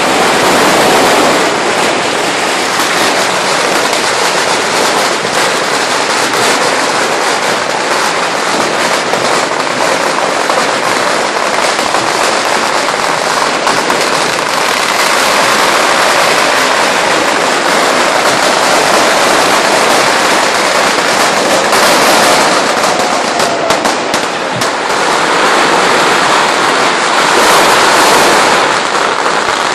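Strings of Chinese firecrackers going off in a dense, continuous rattle of small bangs that never lets up, swelling slightly twice near the end.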